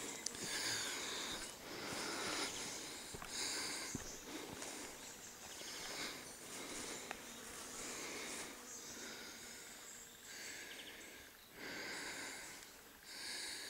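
Footsteps swishing through long grass and undergrowth, about one step a second.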